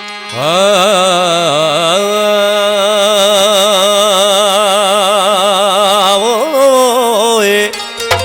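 A male folk singer holding one long vowel note with wide vibrato for about seven seconds over a steady drone, a wordless opening phrase of a Sindhi folk song; the note ends shortly before the tabla comes back in.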